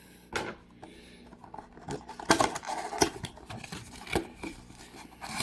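A cardboard trading-card box being opened and handled, giving a few scattered sharp clicks and taps with light rustling between them.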